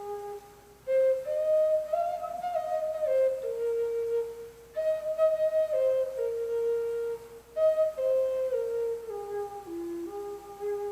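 Native American flute playing a slow melody in three phrases, with short breath pauses between them. Each phrase steps mostly downward from its higher notes.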